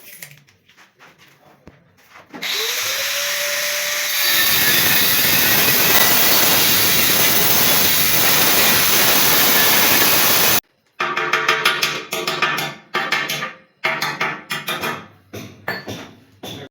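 Handheld power tool starting up, its motor whine rising in pitch, then running loud and steady under load for about six seconds before cutting off suddenly. A run of short, irregular loud sounds follows.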